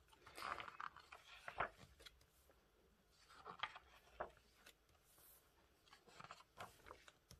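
Faint rustling and swishing of glossy photobook pages being turned by hand, a few separate page turns.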